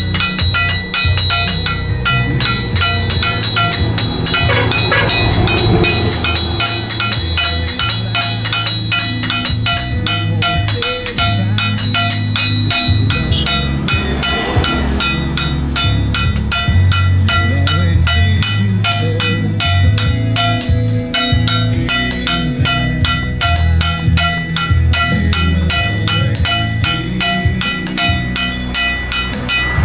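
Blacksmiths hammering a knife blade on a steel anvil with a sledgehammer: fast, continuous strikes of steel on steel, each ringing.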